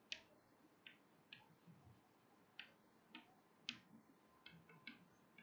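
Chalk tapping and scratching on a chalkboard as a word is written: a dozen or so faint, short, irregular clicks.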